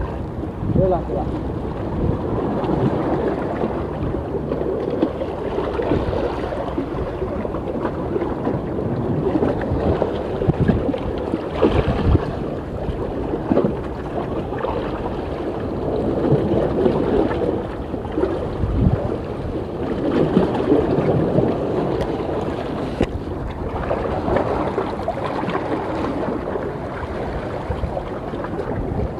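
Strong wind buffeting the microphone in gusts, over the wash of sea waves against the shore rocks.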